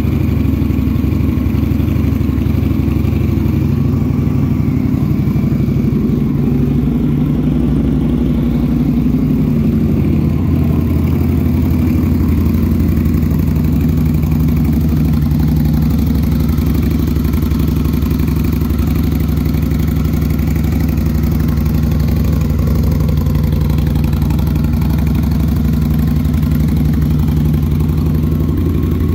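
Indian Scout Bobber's 1133cc V-twin engine idling steadily after a cold start, with a deep, even exhaust note.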